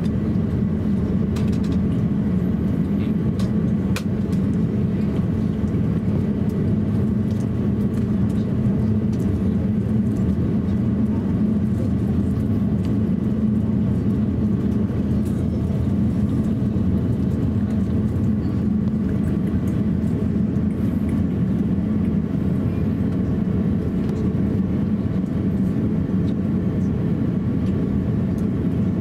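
Steady hum inside the cabin of an Airbus A350-1000 taxiing, its Rolls-Royce Trent XWB engines at taxi power, with a few faint clicks in the first few seconds.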